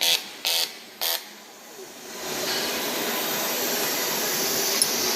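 Pulsed TIG welding arc on aluminium buzzing in short on-off bursts, about two a second, which stop about a second in. From about two seconds in a steady hiss takes over.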